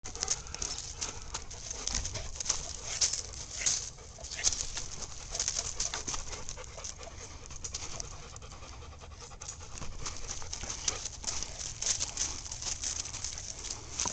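A Leonberger dog panting up close, in quick, irregular breaths that ease off briefly a few times.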